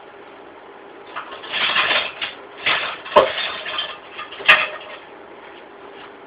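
Kitchen handling noise: rustling and scraping in bursts for a few seconds, with two sharp knocks about a second and a half apart.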